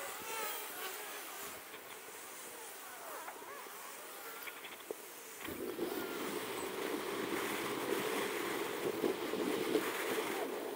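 Road traffic noise and wind on the camera microphone while riding through city streets. It becomes louder about halfway through.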